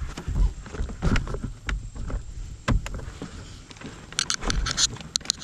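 Irregular knocks and rubbing as wiring is fed through a hole in plastic door trim and pulled through, with a quick run of sharp scratchy clicks about four seconds in.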